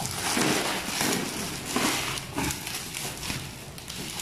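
Bubble wrap and plastic packing tape crinkling and rustling as a parcel is cut open with scissors, in a string of short scratchy crackles.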